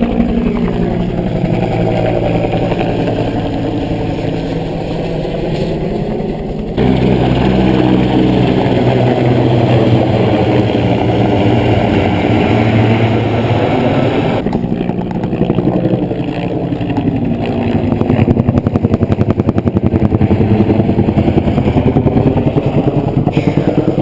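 Firefighting helicopter flying low past: a loud, steady rotor and engine drone whose pitch bends as it passes, with a fast rotor beat that is plainest in the second half. The sound jumps abruptly about seven and about fourteen seconds in.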